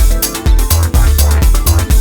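Electronic dance music with a pounding bass beat and crisp hi-hats.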